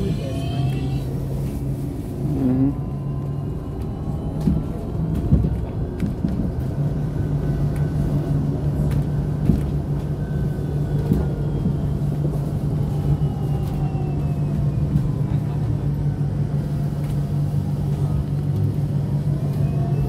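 KAMAZ-6282 electric bus driving, heard from inside the cabin: a steady low hum and road rumble, with faint whines from the electric drive rising and falling in pitch as the bus speeds up and slows.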